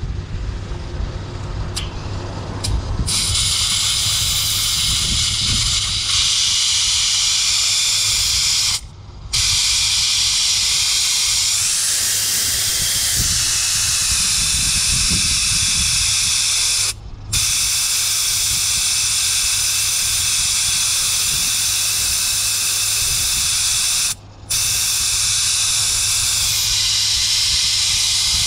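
Air hissing steadily out of a car tyre's valve through a brass tyre deflator with a dial pressure gauge, as the tyre is aired down. The hiss starts about three seconds in and cuts out briefly three times.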